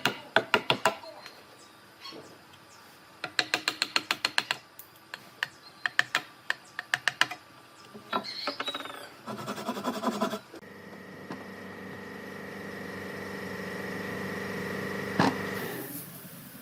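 Several quick runs of sharp taps on wood, then a small electric power tool starting up and running with a steady hum that slowly grows louder before it stops near the end.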